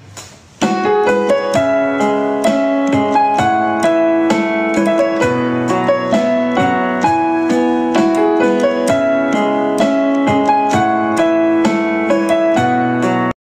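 Piano music: a steady run of struck notes with several sounding together. It starts after a brief pause about half a second in and cuts off abruptly just before the end.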